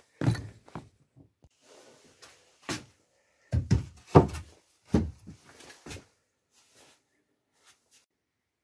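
A series of about six irregular heavy thuds and knocks in a small room, loudest in the middle, then almost quiet for the last couple of seconds.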